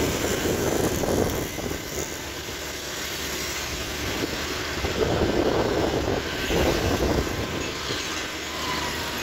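Road and wind noise from riding a moving vehicle through town traffic, a steady rushing that swells twice.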